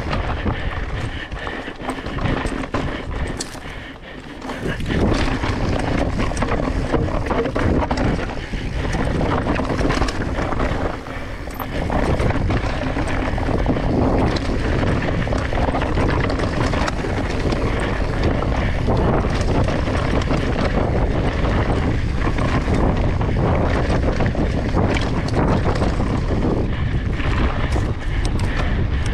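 Mountain bike riding down rocky dirt singletrack: wind buffeting the microphone and the tyres rumbling over the ground, with frequent knocks and clatter from the bike over rocks and bumps. The rumble eases briefly about four seconds in and again just before twelve seconds.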